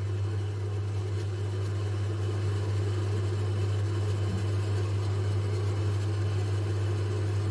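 Steady low machine hum with a fainter higher drone over it, unchanging throughout.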